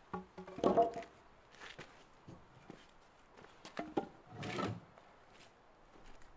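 Lengths of sawn timber set down and shuffled into place on a concrete surface: hollow wooden knocks and clatters, one cluster about a second in and another around four seconds in.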